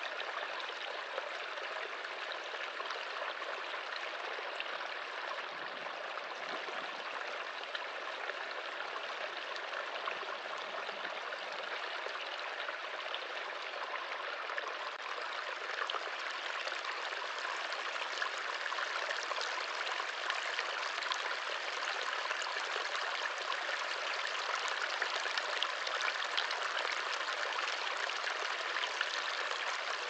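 Shallow forest brook trickling and babbling over stones in a steady stream, growing slightly louder in the second half.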